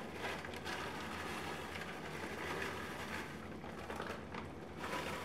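Frozen peas pouring from a plastic bag into a cast-iron skillet of wet stew filling: soft pattering and a few light ticks, with the bag crinkling as it is shaken out.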